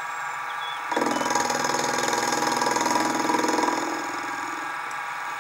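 Mini milling machine running, with an end mill cutting into the metal crank: a steady motor whine, then from about a second in a louder, rhythmic cutting sound as the cutter takes a pass, easing off after about three seconds.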